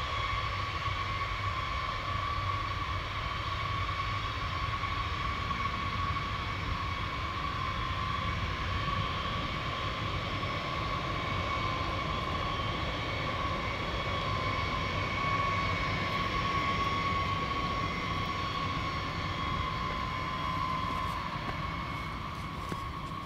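Boeing B-52 Stratofortress taxiing on its eight Pratt & Whitney TF33 turbofans at low power: a steady high-pitched whine over a deep rumble. It fades a little near the end as the bomber moves away.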